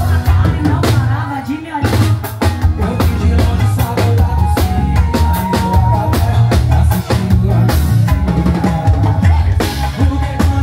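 A live band playing loudly through a PA system: a drum kit beat over bass guitar and other instruments.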